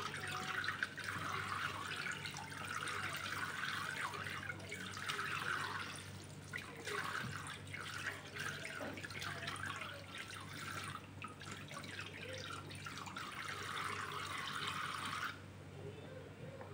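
Tap water running from a sink faucet into a plastic bowl of bean sprouts, splashing as hands swish and rinse the sprouts. The flow cuts off abruptly near the end.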